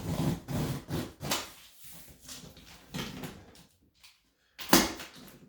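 A cardboard 3D-printer box being handled and opened: a run of scraping and rustling handling noises, then one sharp knock near the end.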